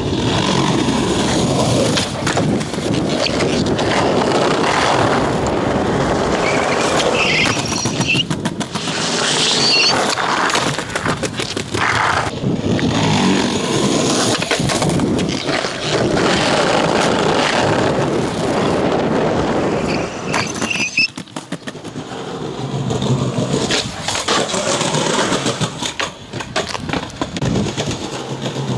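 Skateboard wheels rolling over pavement with a steady grinding rumble. Sharp clacks are heard here and there as the board is popped and lands.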